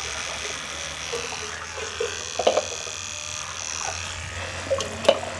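Electric hair clippers running with a steady buzz, with a couple of short clicks along the way.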